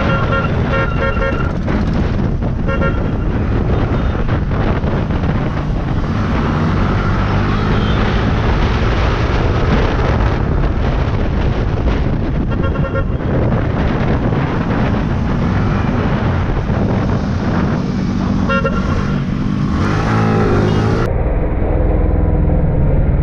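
Yamaha R15 sport bike's single-cylinder engine running at cruising speed in traffic, with steady road and wind noise. A vehicle horn beeps in quick short bursts several times. Near the end the engine pitch rises and falls.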